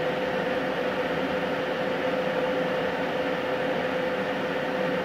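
Multipro MIG-MAG 350N G-KR inverter welding machine switched on and idling: a steady fan whir with a constant mid-pitched hum.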